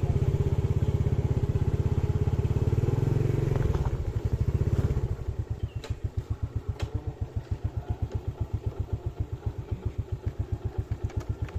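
Motorcycle engine running close by, heavier for the first five seconds, then settling to an idle with a steady beat of about seven or eight pulses a second.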